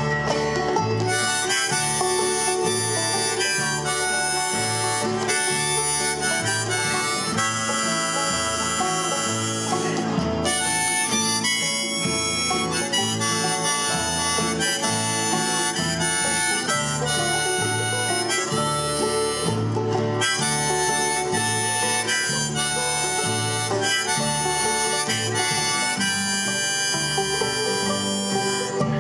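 Instrumental break of a country song by a small string band: a harmonica carries the melody over strummed acoustic guitar, banjo, fiddle and an electric bass alternating low notes.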